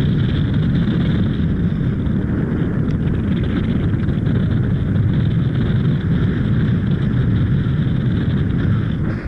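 Wind rushing over the microphone during free flight: a loud, steady low buffeting that eases off briefly right at the end.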